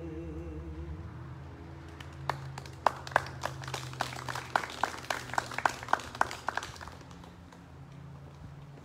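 A held sung note and guitar chord die away at the end of a song, then a few people clap sparsely, about three claps a second, for roughly five seconds.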